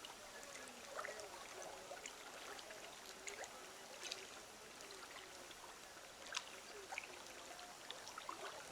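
Faint steady trickle of running water, with scattered small sharp clicks.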